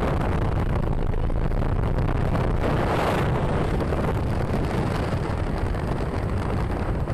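Wind buffeting the microphone over steady road and vehicle noise while moving close alongside a six-wheel Hino truck on the road; the noise swells briefly about three seconds in.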